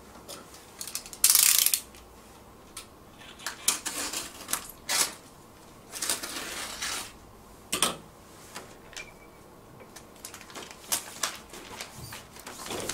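Hand-handling of printed label rolls on a desktop label press: irregular clicks, knocks and rustling scrapes of paper label stock as the rolls are pulled off the machine's shafts, with a short loud scrape about a second in.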